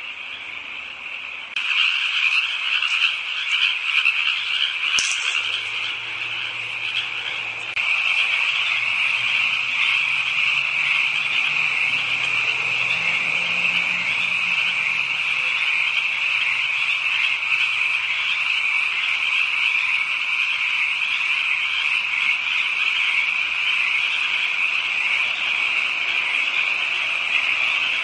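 Dense chorus of many frogs calling at night, a continuous high-pitched din. It gets abruptly louder about a second and a half in and again about eight seconds in.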